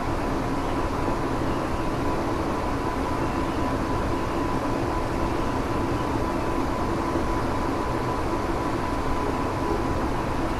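Running sound of a Tokyo Metro 7000 series armature-chopper electric train, a steady rumble of wheels and motors with a thin steady high tone running through it. The car is one the recordist classes as an abnormal-noise car, with a light jet-like running sound.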